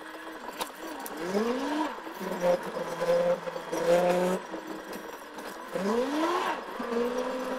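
A vehicle's engine speeding up: its pitch rises steeply about a second in and again near six seconds, then holds a steady hum in between.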